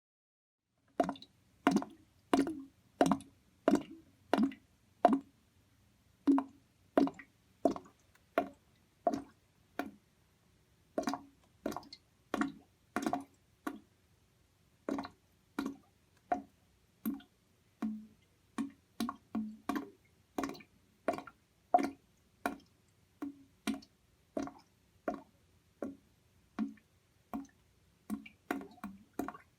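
Water gurgling as single bubbles glug up one after another, about one or two a second, starting about a second in, with short pauses between some of them.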